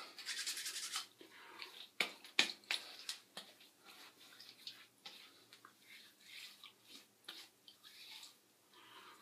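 Soft rubbing of hands on a freshly shaved face as Thayer's witch hazel is applied after the shave. There is a rapid brisk rubbing in the first second and sharp clicks about two and three seconds in.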